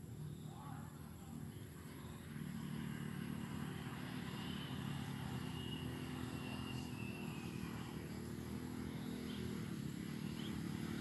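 A motor engine droning steadily, getting louder about two seconds in.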